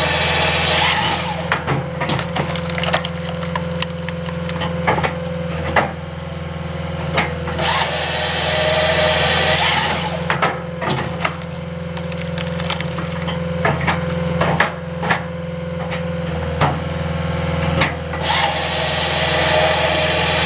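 A skid steer's engine runs steadily under a Halverson HWP-140B firewood processor, whose saw cuts through the log three times: near the start, in the middle and near the end. Between the cuts, wood knocks and cracks as rounds are handled and split.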